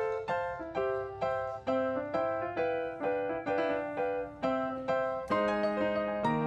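Background piano music: single notes struck in a steady rhythm, about three a second, with fuller, lower chords joining near the end.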